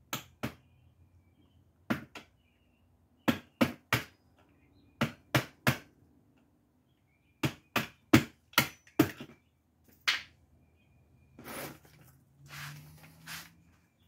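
Sharp tapping blows on a Tesla Model S door handle assembly, driving a tight-fitting part home for the new paddle gear: about seventeen taps in groups of two to five, a few a second. Softer handling and rustling near the end.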